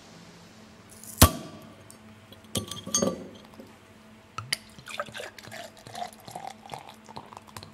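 Scattered glass clinks and knocks with dripping and trickling liquid, one sharp knock about a second in, then a run of lighter clinks.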